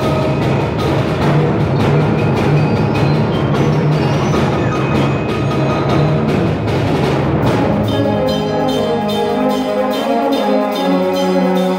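Concert wind band playing fast, driving music with dense percussion strikes under the winds and brass. About eight seconds in, the low percussion drops away and the band goes on in held wind and brass chords.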